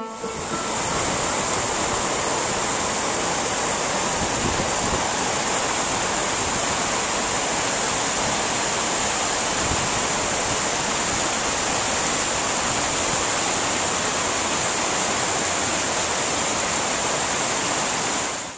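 Shallow river water rushing steadily over a rocky bed; the sound cuts off abruptly at the end.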